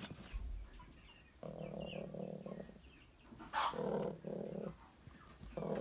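Domestic hen growling: three low, rough growls, a second or so each, the first about one and a half seconds in. It is a hen's warning growl in a dispute over a shared nest box, where she has just laid and means to sit.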